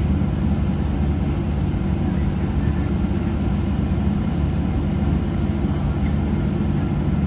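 Steady low cabin hum inside a Boeing 737-800 on the ground after landing.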